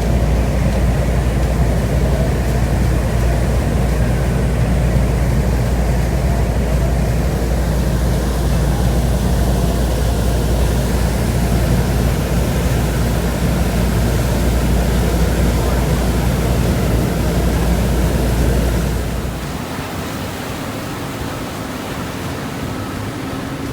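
Steady rushing noise and low rumble aboard a passenger ferry under way, wind on the microphone mixed with the engine. About nineteen seconds in the rumble falls away sharply, leaving a quieter, thinner hum.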